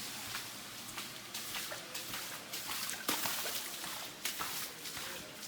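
Floodwater trickling and sloshing, broken by irregular small splashes.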